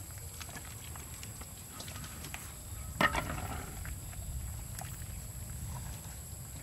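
A metal ladle stirring and scraping curry in a large wok, with faint scattered clicks and one sharp clank about three seconds in, over a low steady rumble.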